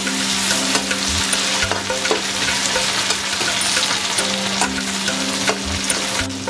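Onion-tomato masala sizzling in hot oil in a kadhai while it is stirred. The steady frying hiss is broken by scattered light clicks of the spatula against the pan.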